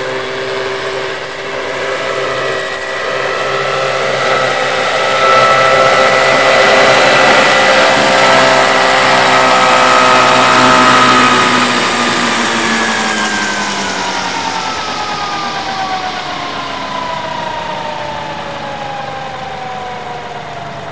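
Large radio-controlled scale OH-6 Little Bird helicopter running on the ground after landing, its drive whine and rotor noise steady at first. From about halfway through, the whine slides steadily down in pitch and fades as the rotor spins down.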